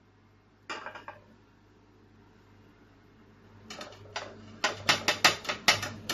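Dishes and utensils clinking: a brief clatter about a second in, then a quick run of sharp clinks near the end.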